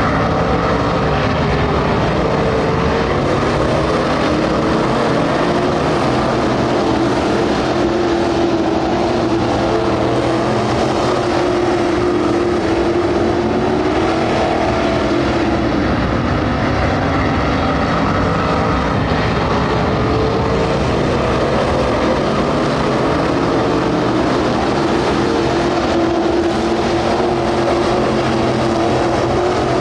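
A pack of street stock race cars running at racing speed on a dirt oval: a continuous blend of engine noise whose pitch slowly rises and falls as the cars circle.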